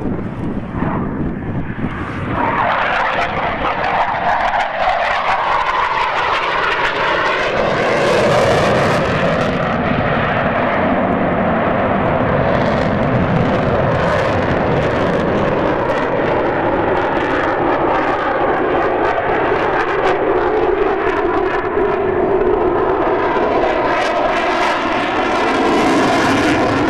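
Eurofighter Typhoon's twin EJ200 turbofan jet engines running at display power, a loud, continuous jet noise. It rises about two seconds in, and its tone sweeps up and down as the jet moves across the sky.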